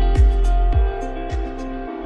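Background music: held instrument notes over a steady deep beat, about one thump every half second, which drops back about halfway through.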